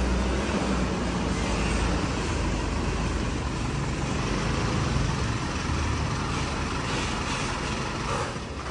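Hino Dutro light truck's diesel engine running as the truck rolls slowly forward, a steady low rumble.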